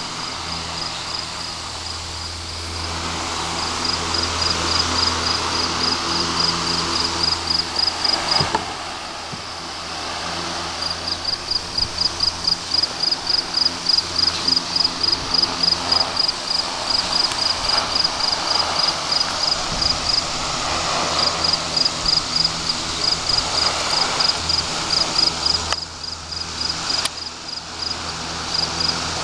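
Restored 1930s Emerson 75048 16-inch steel-blade DC fan running steadily on rectified AC, its motor humming under the rush of the blades. Over it, a cricket-like insect chirps in rapid, evenly pulsed high-pitched notes, pausing briefly about two-thirds of the way in.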